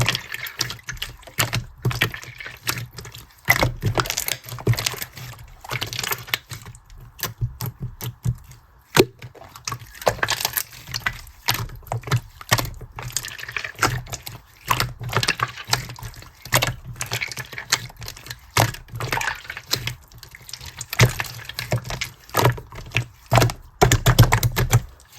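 Hands squishing and pressing slime: a continuous run of wet, sticky clicks and crackles in irregular bursts.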